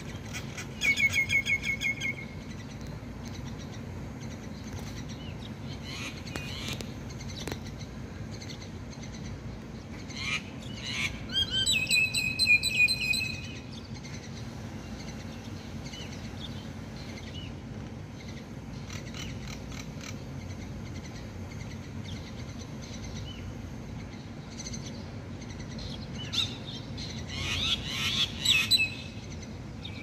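Starlings calling in three bursts. First comes a rapid run of repeated notes about a second in, then a longer spell of whistles and chatter around the middle, then a jumble of notes near the end. A steady low background rumble runs underneath.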